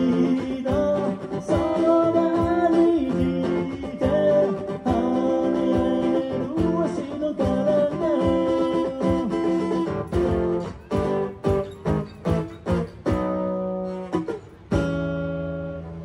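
Live acoustic guitar playing an instrumental passage, with a held melody line that bends in pitch over the strumming. About ten seconds in it breaks into short, stopped chord stabs, then ends on two long held chords: the close of the song.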